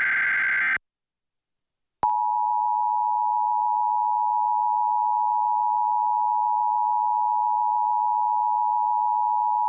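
The last of an Emergency Alert System digital header burst ends about a second in. After a brief silence, the EAS two-tone attention signal (853 and 960 Hz sounded together) starts about two seconds in and holds steady, announcing that an alert message follows.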